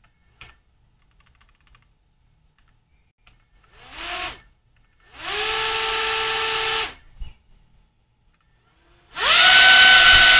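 Brushless motor with a three-blade propeller, driven by a DIY ESC, spun up in three bursts: a short one about four seconds in, a steady run of about two seconds, then a louder, higher-pitched run near the end. Each burst starts with a rising whine that levels off into a steady prop hum, and each start is clean and reliable.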